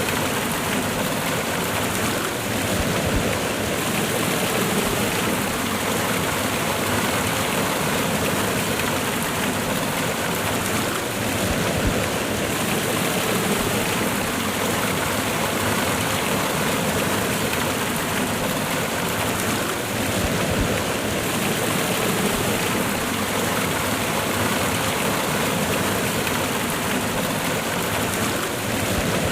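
Cascading waterfall: water pouring and splashing over rocks, a steady, even rush.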